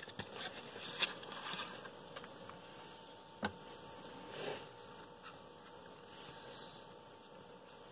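Cards being handled and laid out on a desk: faint rustles and light clicks, with one sharper click about three and a half seconds in.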